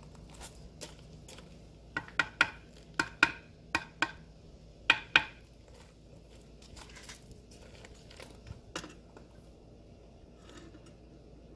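Masonry trowel tapping a concrete block down into its mortar bed: about nine sharp taps, mostly in quick pairs, in the first half, and one more tap later on.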